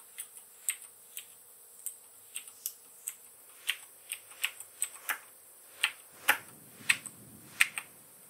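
Keys of a backlit computer keyboard being typed, slow and uneven, roughly two or three sharp clicks a second.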